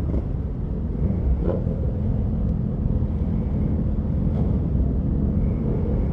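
Motorcycle engines running at low speed in a slow-moving pack of bikes, a steady low rumble heard from one of the motorcycles.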